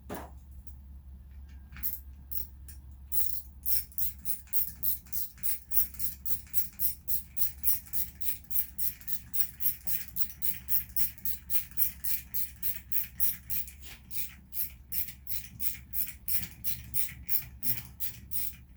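A long, regular run of sharp mechanical clicks, about three a second, starting a few seconds in, from hand work on a Poulan chainsaw.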